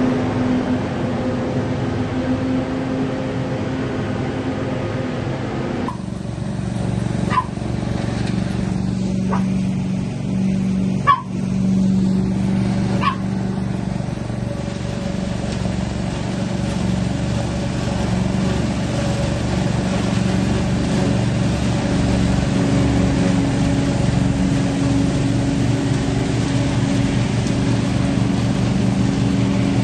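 Truck-mounted leaf vacuum running steadily with an engine hum, its wide hose sucking up dry leaves. A dog barks four times, about two seconds apart, in the first half.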